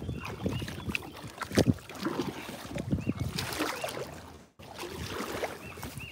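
Water sloshing and knocking irregularly against the hull of a small inflatable boat as it moves along the shore. The sound breaks off for an instant about two-thirds of the way through.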